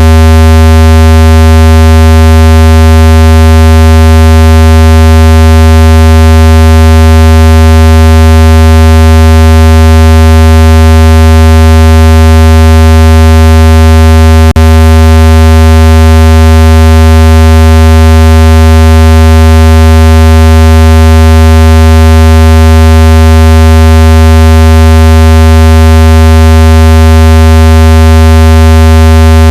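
Speaker-cleaner tone: a steady, very loud, low buzzing tone played through a phone speaker to shake water and dust out of it. There is a single brief click about halfway through.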